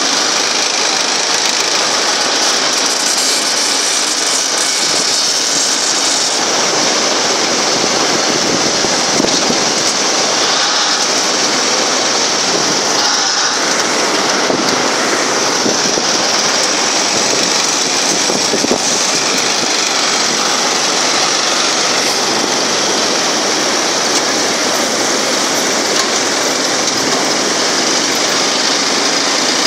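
A 5500 2WD tractor's engine running steadily as it works a front-loader grab bucket, an even noisy drone with no clear changes.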